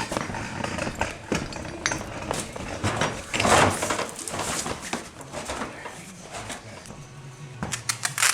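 Clattering knocks and clanks of mooring gear being handled and set down, with a louder scraping rush about three and a half seconds in and a quick run of clicks near the end.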